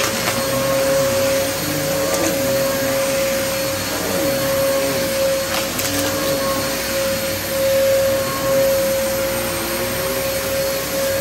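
VacMaster vacuum cleaner running steadily with a constant whine, and a couple of faint crackles as it picks up debris.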